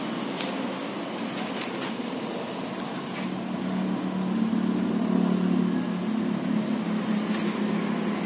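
Chevrolet Aveo's four-cylinder petrol engine idling steadily under the open hood, its hum growing louder about four seconds in, with a few light clicks.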